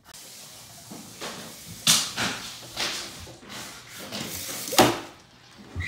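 Handling noise from a handheld phone camera being carried through a room: a few short knocks and rustles over a faint hiss, the strongest about two seconds in and again near the end.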